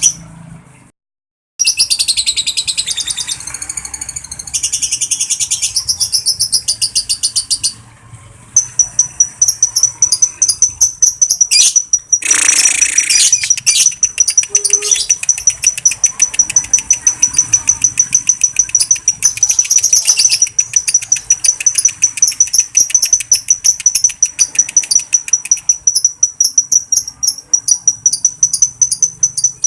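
Lovebird 'ngekek': a long, rapid chattering trill of high, piercing chirps, several a second, given as a call to rouse other lovebirds. It breaks off briefly about a second in and again near 8 s, then runs on without a pause.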